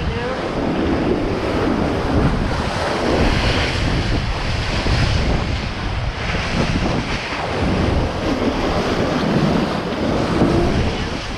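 Strong wind buffeting the microphone over the rushing wash of the sea around a sailboat surfing down big waves, with surges of hiss every second or two.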